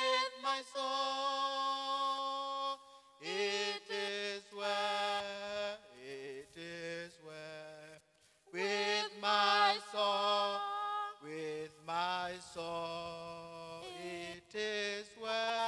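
A woman singing a hymn solo and unaccompanied through a microphone, in long held notes with short breaks between phrases.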